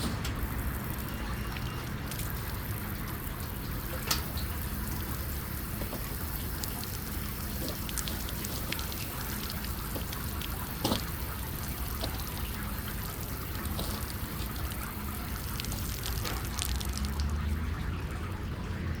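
Steady splashing, trickling water with a low rumble underneath, and two sharp clicks, about four and eleven seconds in.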